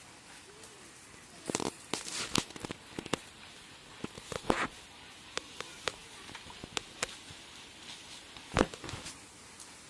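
Irregular crackles and clicks of footsteps and rustling through grass, leaves and twigs on a pond bank, with one louder knock near the end.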